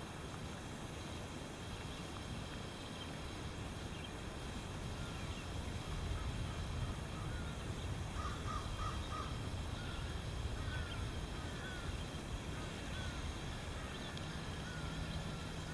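Birds calling faintly with short repeated cries, including a quick run of three notes midway, over a steady low background rush.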